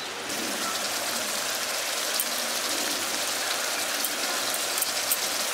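Curry gravy simmering in a kadai over a gas burner: a steady sizzling hiss with faint crackles.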